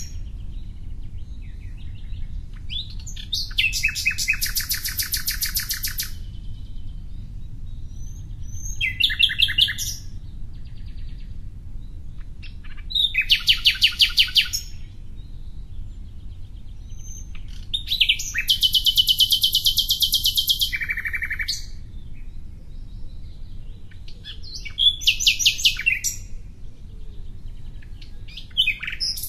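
A songbird singing in separate phrases of rapid, trilled high notes, each a second or two long and a few seconds apart, over a steady low background rumble.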